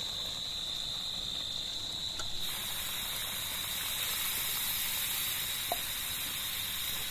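Water poured in a stream into a hot wok of pork curry masala: a steady rushing hiss that starts about a third of the way in, over a steady high-pitched chirring.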